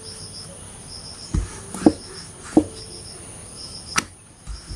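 Crickets chirping in short, evenly repeated pulses. Over them come four sharp knocks from the wooden rolling pin and board as a ball of bread dough is rolled out.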